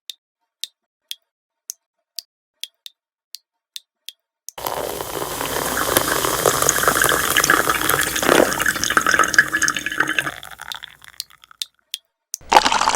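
Liquid dripping, about ten sharp drips at roughly two a second. It then gives way to a steady pour with gurgling that fades out, a couple more drips, and the pour starting again near the end.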